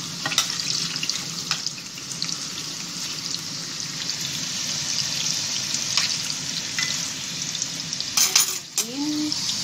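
Potatoes sizzling steadily as they fry in a stainless saucepan, stirred with a metal utensil that clicks and scrapes against the pan now and then. There is a louder clatter of metal near the end.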